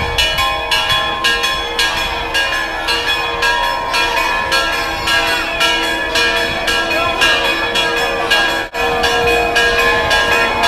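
Church bells pealing in a fast, continuous run of strokes, several a second, their ringing tones overlapping, with crowd voices underneath. There is a brief break about eight and a half seconds in.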